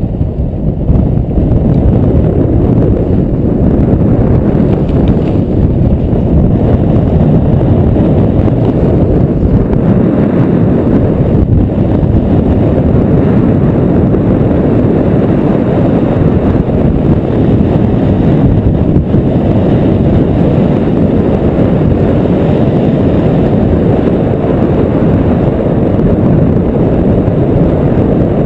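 Wind buffeting the microphone of an action camera worn by a skier going downhill, a steady rumble that stays even throughout.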